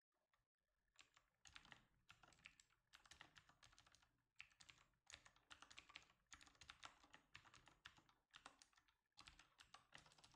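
Faint typing on a computer keyboard: a run of irregular keystroke clicks, several a second, starting about a second in.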